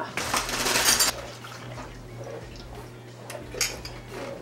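Kitchen bowl and dish handling: a short rush of something being poured during the first second, then a few light clinks and taps.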